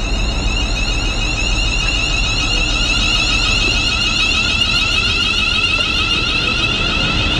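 Train's electronic door warning alarm sounding continuously, a high-pitched pulsing tone, over the low rumble of the train.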